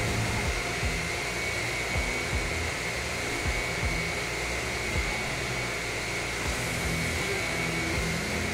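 Miller Trailblazer 280 NT engine-driven welder running steadily between welds, a constant engine hum with a steady high whine over it.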